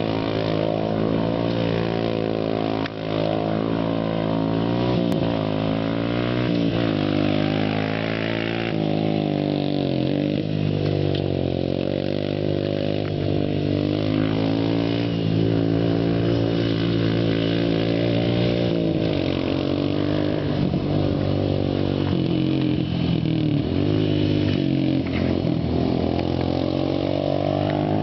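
Honda Foreman 450 ATV's single-cylinder four-stroke engine through an HMF aftermarket exhaust pipe, run wide open: the pitch climbs and drops again and again as the quad is ridden.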